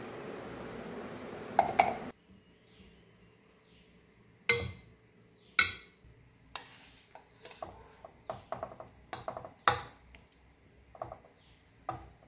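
A metal spoon clinking and scraping against stainless steel cookware. For the first two seconds it scrapes ground spice powder in a steel mixer jar over a steady hiss. After that come scattered sharp clinks of a spoon against a steel pan as cooked rice is stirred.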